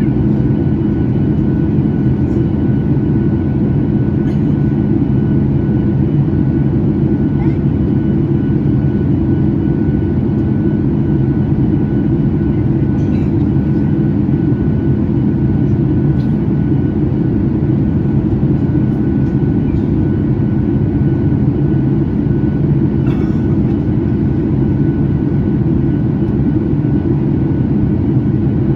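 Steady cabin noise inside a Boeing 737 MAX in flight: a dense, loud rush of airflow and engine noise from its CFM LEAP-1B turbofans, with a few steady humming tones over it.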